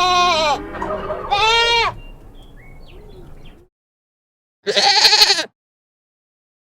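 Goat bleating: a long, wavering bleat runs into the start, a second shorter bleat follows about a second and a half in, and a short, higher-pitched bleat comes about five seconds in.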